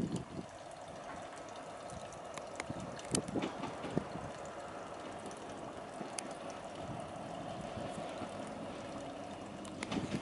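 Two Vossloh diesel locomotives hauling a freight train, approaching: a steady engine hum under a hiss, growing slightly louder near the end, with a few faint clicks.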